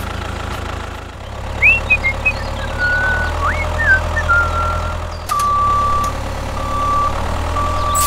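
Tractor engine sound effect running steadily at a low idle-like chug. A few short whistling chirps sound about two to four seconds in, and a steady high beep comes in the last three seconds, broken twice.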